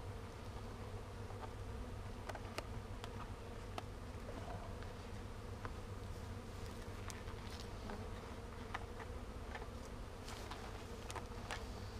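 Honeybees from a swarm being hived, buzzing steadily as many fly around the open hive, with scattered light clicks throughout.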